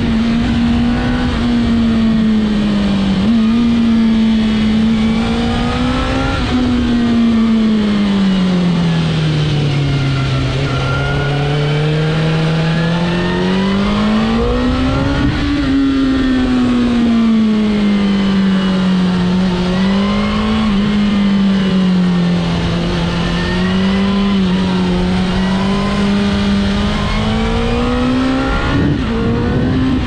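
2002 Suzuki GSX-R1000 K2's inline-four engine, heard from the rider's seat while riding, its revs falling and rising smoothly several times with the throttle through the bends. An even rush of wind and road noise runs underneath.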